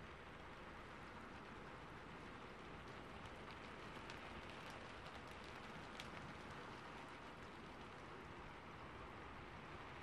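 Rain falling on a roof: a steady, even patter, with scattered sharper drop ticks in the middle.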